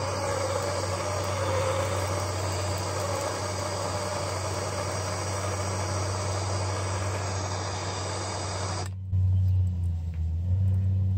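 Propane-fed Bernzomatic TS8000 trigger-start torch burning with a steady rushing hiss, its flame aimed into the bottom of a cold smoke generator to light the charcoal and wood inside. The hiss cuts off abruptly about nine seconds in as the trigger is released.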